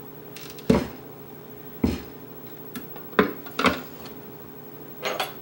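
About five short knocks and clacks of a Ninja food chopper's plastic bowl and blade assembly being handled on the counter, spread a second or so apart.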